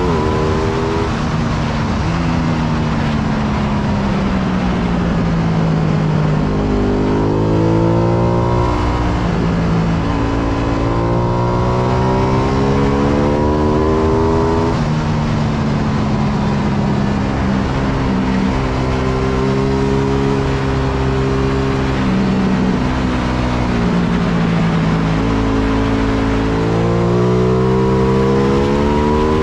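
Ducati Panigale V2's V-twin engine at racing speed, its pitch climbing hard through the gears with sudden drops at the upshifts, and falling away several times as it slows for corners before pulling up again. A steady rush of wind runs under it.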